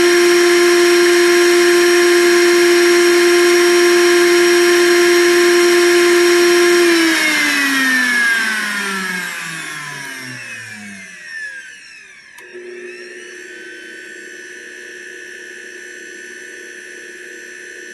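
Blendtec Designer 625 blender base running empty with no jar, its motor at a steady high speed until the timed cycle ends about seven seconds in, then spinning down with a falling whine over several seconds. A click follows, and a much fainter steady hum keeps on from the base.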